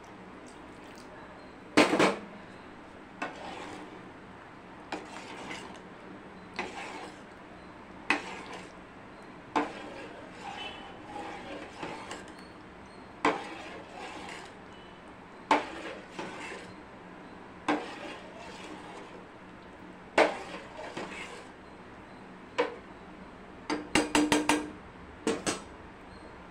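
Metal ladle knocking and scraping against a stainless steel pot while stirring thick sambar, a short clink every second or two, with a quick run of knocks near the end.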